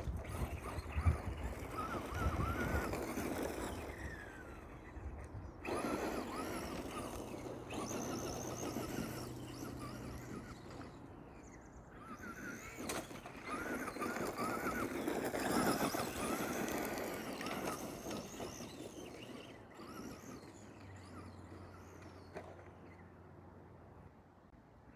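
Traxxas Rustler RC truck's electric motor whining in several surges as it is driven and throttled on and off, over the rustle of its tyres on dirt.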